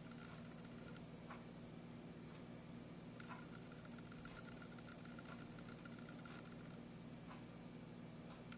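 Near silence: room tone with a low steady hum and a faint, high, steady whine, broken by a few faint ticks.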